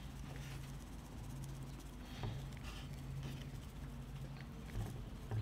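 Coarse seasoning granules shaken from a shaker bottle, pattering faintly and irregularly onto raw steaks, over a low steady hum.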